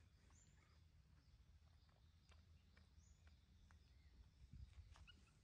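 Near silence: faint outdoor ambience with a low rumble, a few faint high chirps and small scattered clicks.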